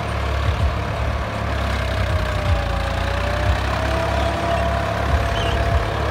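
Swaraj 963 FE tractor's diesel engine running steadily as it pulls a pneumatic planter across the field. A faint whine sits above the engine, sagging in pitch midway and then recovering.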